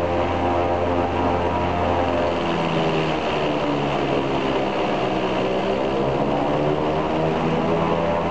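Il-14's left Shvetsov ASh-82T radial engine and propeller running steadily during a ground run-up, heard from inside the cockpit. The tone of the drone changes about two and a half seconds in and settles back near the end.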